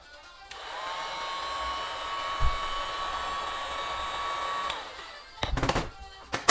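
Electric lift motor of a physiotherapy treatment table running for about four seconds with a steady whine, rising briefly in pitch as it starts and winding down as it stops, followed by a few knocks and one sharp click.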